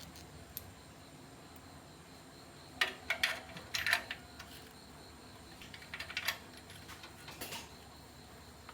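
A few light metallic clicks and clinks of tools or parts being handled during a repair: a quick cluster about three seconds in, then a couple more further on, over a low steady background.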